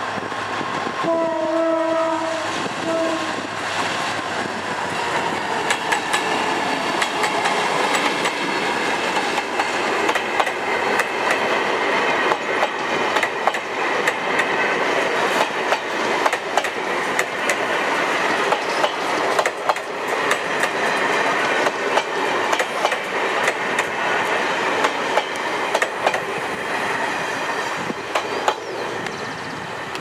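Diesel locomotive horn, one long blast and then a short one about a second in. Then a long passenger train rolls past close by, its wheels clicking over the rail joints in a steady run of clacks.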